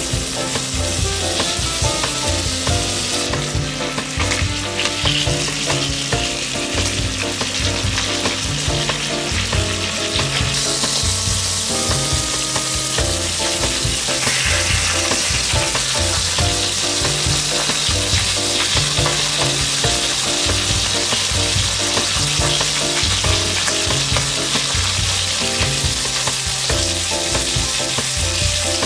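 Food sizzling as it fries in a pan, a steady hiss, under background music with a repeating bass line.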